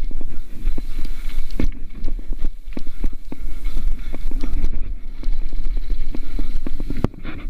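Mountain bike descending a dirt and gravel trail: a steady low rumble of wind buffeting the riding camera's microphone, with frequent knocks and rattles from the bike over bumps.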